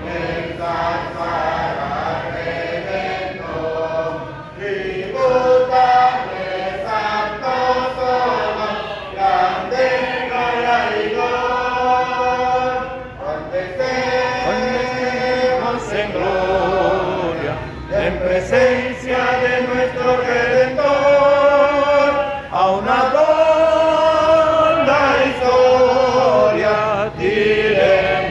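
Church congregation singing a hymn together, many voices in long held notes.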